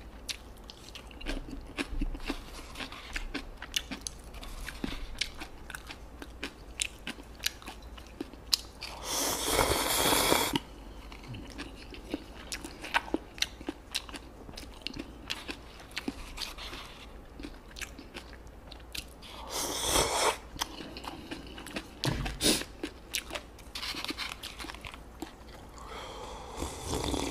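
Close-miked eating of kimchi and ramyun noodles: wet chewing with many small mouth clicks. Two loud slurps about nine and twenty seconds in, and a sip of broth from the bowl near the end.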